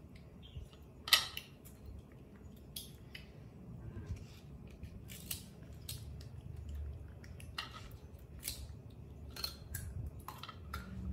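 A baby macaque biting and chewing crisp fruit slices: scattered small crunches and clicks, the sharpest about a second in.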